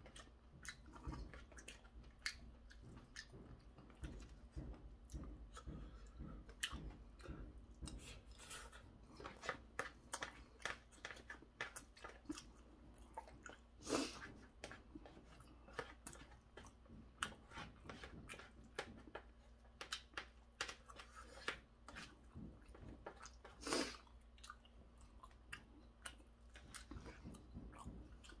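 A person chewing and crunching stir-fried pork cartilage, with many small mouth clicks and a couple of louder sharp sounds about halfway through and near the end.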